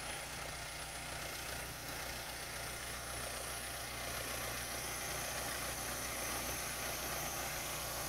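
Backhoe loader's engine idling steadily.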